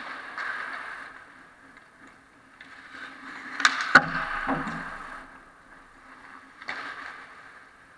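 Ice hockey skates scraping and carving on the ice in several swells, with two sharp clacks of sticks and puck about halfway through, the second with a low thud, as players crowd the net.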